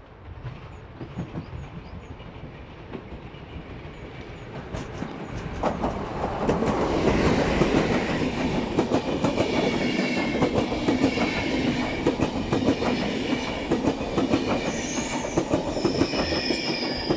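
Intercity passenger train hauled by an EU46 electric locomotive passing close by. The sound builds as it approaches and grows much louder about six seconds in. The coaches then roll past with rapid clicking of wheels over rail joints and points, and a high wheel squeal joins near the end.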